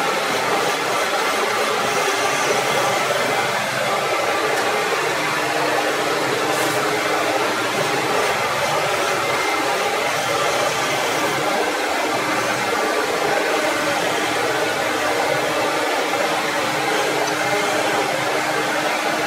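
CamVac CGV336-4 dust extractor running on both motors, a steady, even rush of motor and air noise through the hose at the lathe, with a pen blank being turned on the lathe.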